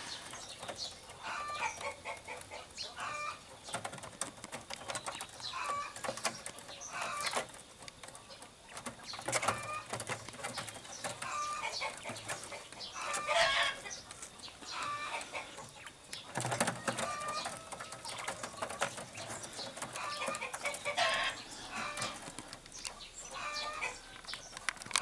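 Chickens clucking over and over in short calls, with scattered sharp clicks and rustling.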